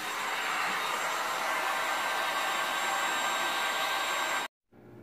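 Heat gun blowing steadily, a loud even hiss with a faint whine in it. It cuts off abruptly about four and a half seconds in, leaving a much quieter steady background.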